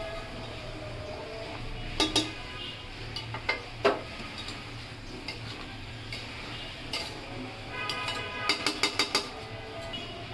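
A metal spatula stirring chunks of bottle gourd and fish in an aluminium pot, knocking and clinking against the pot. There are two knocks about two seconds in, a sharp one about four seconds in, and a quick run of clinks near the end.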